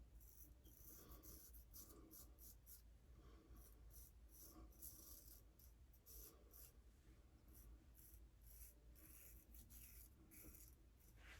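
Faint, quick run of short raspy scrapes, several a second, from a 6/8 straight razor with a Spanish point cutting whiskers through shave lather.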